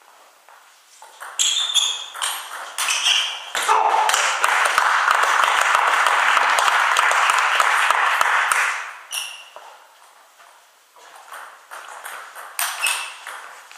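Table tennis ball clicking off paddles and the table in a quick rally, then about five seconds of applause when the point ends. A few more light ball bounces follow near the end.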